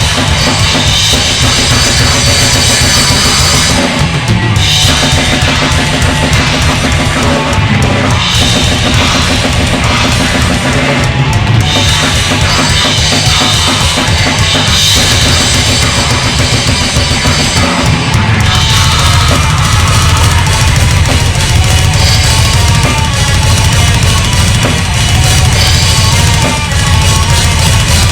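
Drum kit played hard along with a recorded heavy rock track, with bass drum and cymbals over the band's music.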